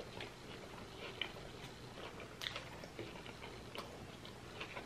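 Close-miked chewing of a mouthful of taco: soft, wet mouth clicks and smacks, with a few sharper clicks standing out.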